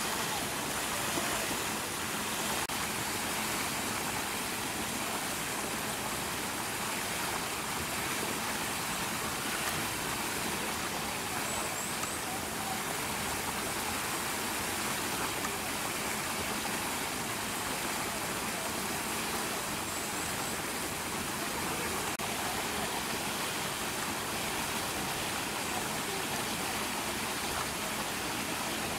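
Steady, even rushing background noise with no distinct events, and a couple of faint short high chirps near the middle.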